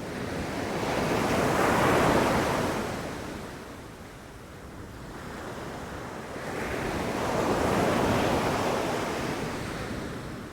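Ocean waves breaking and washing ashore, two swells of surf about six seconds apart, each rising and then fading away.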